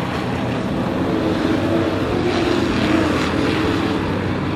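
Sport-truck race engine running steadily as the truck goes around the oval, its drone swelling a little in the middle.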